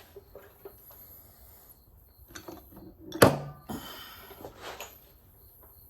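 Metal transmission parts handled on a workbench: light clicks and knocks, with one sharp clank about three seconds in, followed by a brief rustle and scraping.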